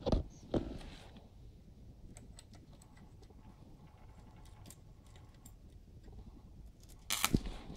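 Sharp clicks from a valve being wiggled and handled in its socket in a vintage Philips hybrid valve TV chassis: two loud clicks at the start, scattered faint ticks, then a quick cluster of loud clicks near the end.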